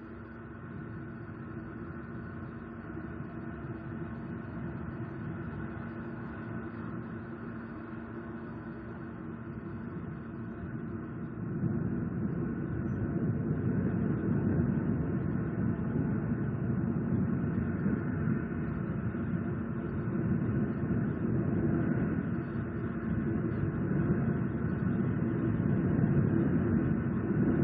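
Steady low rumble with a faint constant hum, growing louder about eleven seconds in.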